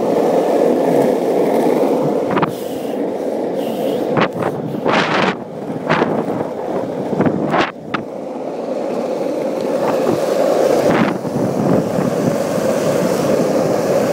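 Steady rolling rush of wheels running fast over pavement, with a handful of sharp clicks and scrapes in the first half and one more past the middle.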